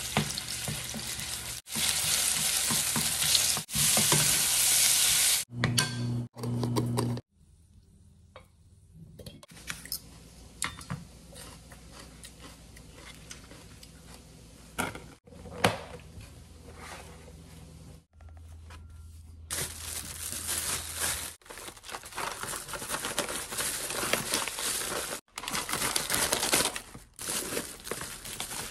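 Bacon sizzling in olive oil in a frying pan, stirred with a wooden spatula, loud for the first several seconds. Then come quieter scattered clicks and knocks of food being handled on a cutting board, and in the last third louder rustling and crinkling.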